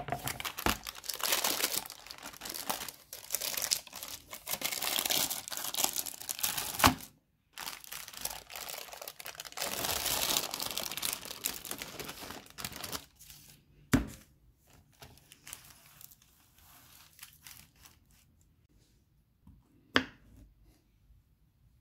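Baking paper crinkling and rustling as it is peeled and pulled away from a slab of set dark chocolate bark, in two long stretches, then only faint crackles after about thirteen seconds. Four sharp knocks come along the way, the loudest about fourteen seconds in.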